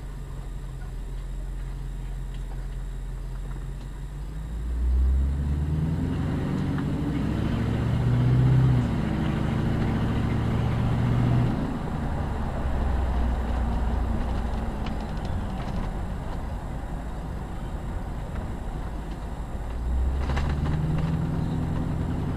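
Car engine and road noise heard from inside the cabin. The engine pulls harder about five seconds in, eases off sharply near the middle, and picks up again near the end.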